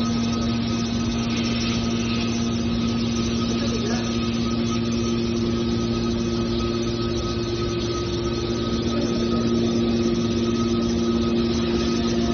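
Hydraulic scrap metal baler's power unit running with a steady hum holding a few constant tones.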